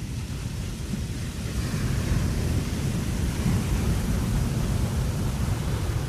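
Wind blowing across a ship's deck: a steady low rumble that swells about two seconds in, when a higher hiss joins it.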